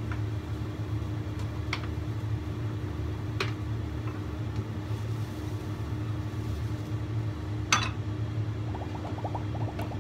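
Steady low kitchen hum with a few sharp clicks of a wooden spatula against a wok as the broth is stirred. Near the end a rapid run of short rising chirps starts, an added editing sound effect.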